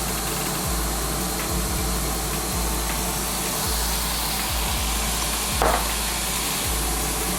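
Steady sizzling hiss over a low hum from kitchen cooking appliances running, with a short clatter a little past halfway.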